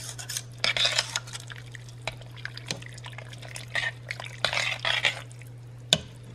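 Spoon stirring a thick, creamy broccoli cheddar soup in a metal pot: wet sloshing and scraping against the pot in irregular strokes, with a few sharp clicks near the end.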